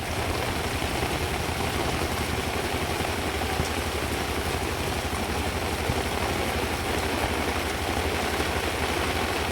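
An engine running steadily: a low, fast-pulsing rumble under a loud even hiss, starting abruptly.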